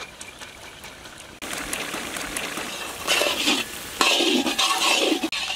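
Chopped vegetables sizzling in hot oil in a large wok (kadai), with a spatula stirring and scraping them. The sizzling starts about a second and a half in and gets louder in two spells near the end.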